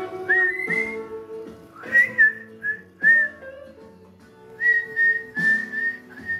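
A whistled melody of short notes and a few held, gliding tones, over guitar music playing.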